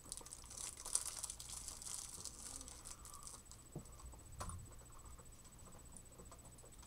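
Plastic wrapper crinkling and rustling as it is handled, a dense crackle for about three seconds, then a single sharper click about four and a half seconds in.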